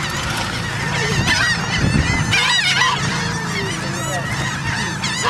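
A flock of waterbirds calling at close range while being fed bread: many short honks and calls overlap continuously.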